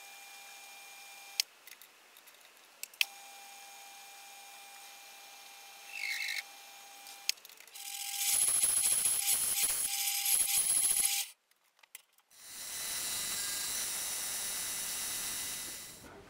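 Metal lathe running with a steady whine while an aluminium bar spins in it, with a few sharp clicks. About eight seconds in, a metal-cutting bandsaw cuts aluminium, loud and hissing with a high whine, for about three seconds. It stops abruptly, and a steady machine noise follows for the last few seconds.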